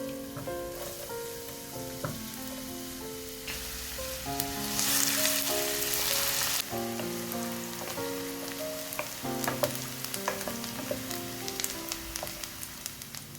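Food sizzling as it fries in a pan, loudest for a few seconds near the middle, with a few light clicks later on. Soft background piano music plays throughout.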